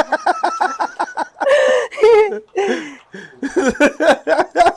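People's voices, laughing and chattering in quick, short bursts.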